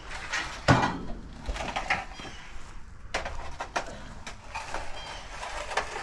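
Several sharp knocks and clunks, the loudest under a second in and more around three and four seconds, with faint short high chirps between them.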